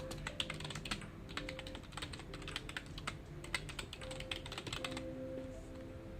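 Computer keyboard typing in quick, uneven runs of keystrokes, thinning out about five seconds in, over soft background music.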